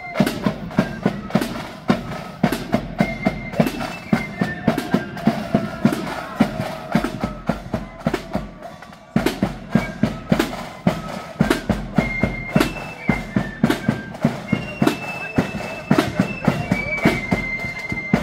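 Marching flute band playing: high flutes carry a tune over a steady beat of side drums and bass drum. The playing drops away briefly about eight seconds in, then the drums come back in hard.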